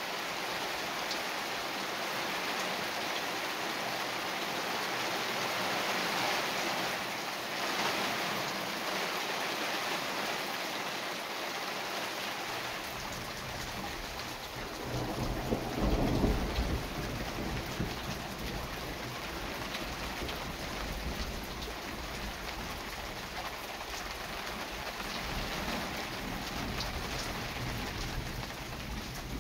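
Thunderstorm: rain falling steadily throughout, with a roll of thunder that builds a little under halfway through, peaks soon after and rumbles on, and another low rumble near the end.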